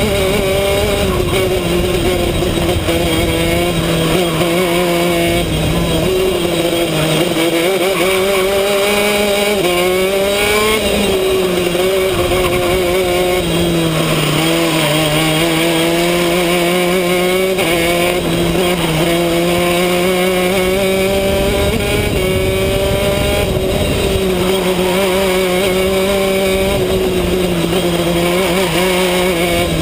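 A two-stroke racing kart engine at full race pace, heard from on board. Its pitch climbs on the straights and drops sharply into corners several times, about a third of the way in, near the middle and again later.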